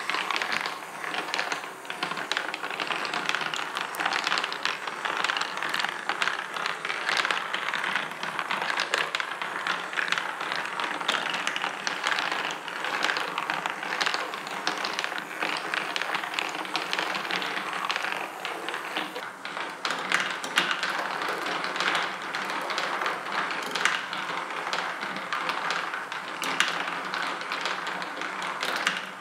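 Marble machine running: steel marbles rolling and clicking along the mini golf tracks and dropping through the holes, over a steady clatter from the marble lift. The clicking and rattling go on without a break.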